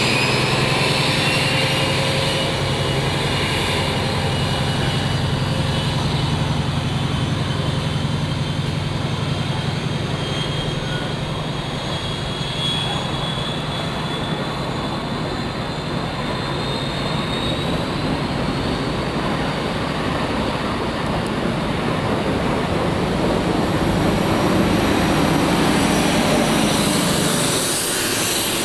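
Paxman Valenta diesel engines of an InterCity 125 HST's Class 43 power car screaming under power: a steady engine drone under a high turbocharger whine that rises slowly in pitch as the train accelerates away. The sound swells again near the end.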